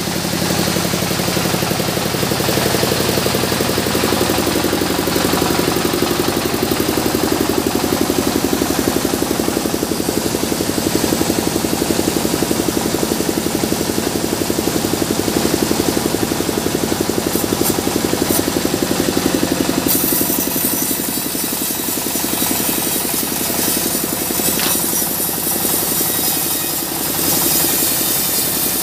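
Stationary engine of a band sawmill running steadily with a fast, even chug. A high hiss grows stronger about two-thirds of the way through.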